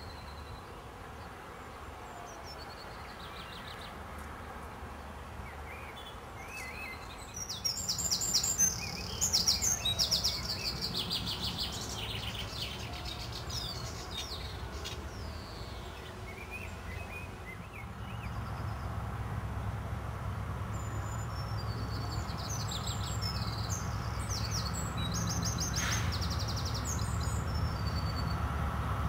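Small birds singing and chirping, loudest in bursts about a third of the way in and again near the end. Underneath, a low rumble builds through the last third as a diesel High Speed Train approaches.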